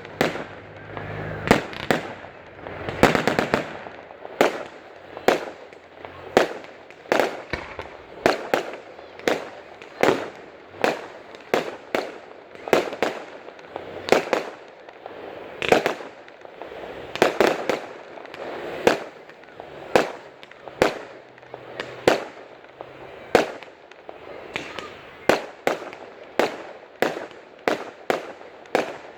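Fireworks going off in a long, fairly regular run of sharp bangs, a little more than one a second, each with a short echoing tail.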